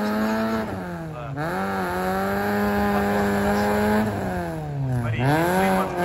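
Off-road car's engine held at high revs under heavy load. The revs sag sharply twice, a little over a second in and again about five seconds in, and each time climb straight back up.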